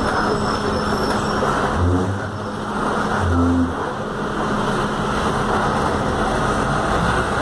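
Cabin noise inside a Volkswagen 17-230 OD city bus under way: steady engine and road noise, with two brief low thuds about two and three and a half seconds in.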